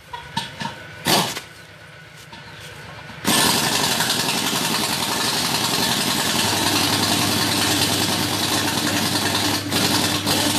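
A few knocks, then about three seconds in a loud steady rush of compressed air starts suddenly from an air hose, inflating the tyre of a walking tractor's front wheel. A low steady hum joins about six seconds in.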